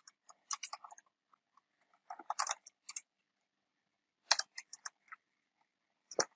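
Computer keyboard typing, faint, in about four short bursts of keystrokes with pauses between them.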